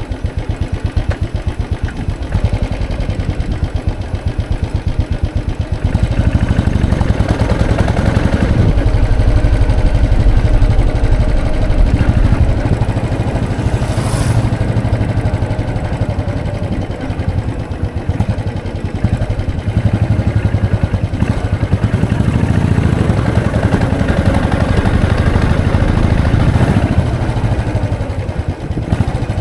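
Royal Enfield Classic 500's single-cylinder engine running on the move, its steady exhaust beat getting louder about six seconds in and again around twenty seconds, easing off in between and near the end.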